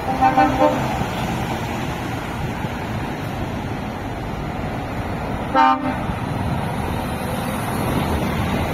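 Lorry horn tooting: three quick short beeps right at the start, then one louder blast a little over halfway through, over the steady running of lorry engines and traffic.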